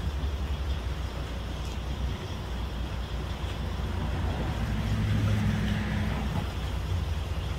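Idling truck engine: a steady low rumble that swells for a couple of seconds about five seconds in.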